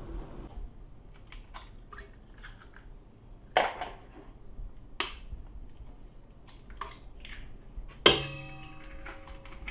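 Clicks and knocks of a stand mixer's head and attachment being handled against its stainless steel bowl, with a sharp clank about three and a half seconds in and another at five seconds. Near the end a loud knock on the stainless steel bowl sets it ringing for over a second.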